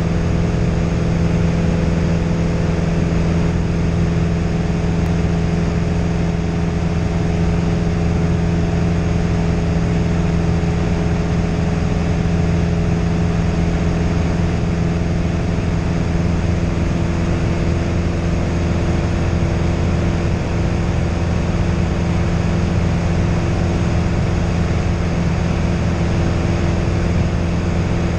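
Single-engine light aircraft's piston engine and propeller running steadily in flight, heard inside the cabin as a constant even-pitched drone.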